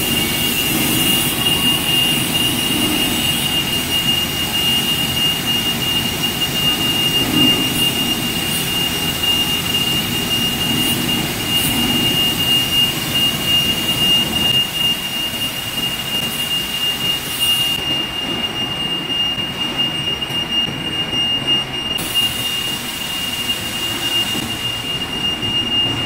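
Large lathe running steadily, turning a big steel disc in its four-jaw chuck: a constant high-pitched whine over an even machine hum.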